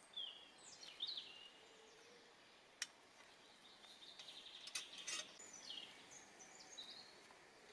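Faint songbirds singing in woodland: short chirps and falling whistled phrases, with a brief trill about four seconds in. A few sharp clicks come about three and five seconds in.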